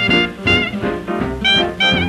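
A 1931 dance band orchestra playing an instrumental fox trot chorus from a 78 rpm record, with brass and saxophones over a steady beat of about two a second.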